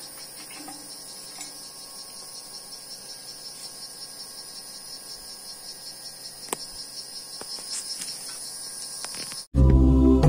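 Steady high-pitched insect chorus with a fast pulsing trill, broken by a few faint clicks. Loud music starts abruptly near the end.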